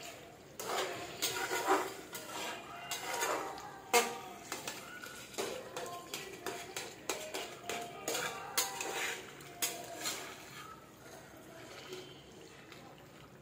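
A flat metal ladle stirring and scraping chicken and mashed tomatoes around a metal kadhai, with irregular clinks against the pan; the sharpest clink comes about four seconds in.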